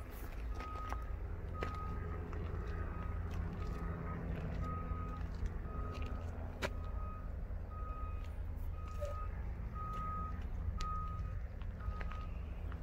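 A vehicle's reversing alarm beeps at a steady single pitch over the low rumble of its running engine, with a few scattered knocks. The beeping stops near the end.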